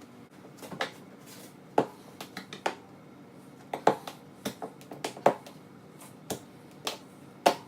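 A mountain-bike tire bead being forced by hand over a CushCore insert onto the rim: a string of irregular sharp snaps and slaps, one to three a second.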